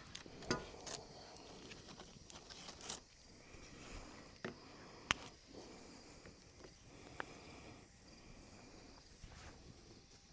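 Faint outdoor background broken by a few scattered sharp clicks and knocks, the loudest about halfway through.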